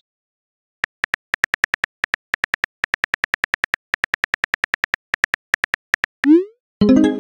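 Simulated phone-keyboard typing sound effect: a rapid, even run of short clicks, roughly six a second, one per letter. Near the end comes a quick rising swoosh as the message is sent, followed by a short pitched tone.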